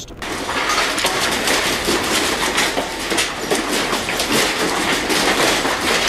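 Shelves and their contents rattling and clattering as an earthquake shakes the building: a dense run of many small knocks over steady noise.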